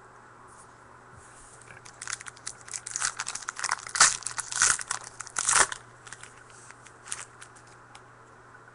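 A trading card pack's wrapper being torn open and crinkled, a few seconds of crackling and ripping that is loudest around the middle, then a few small rustles.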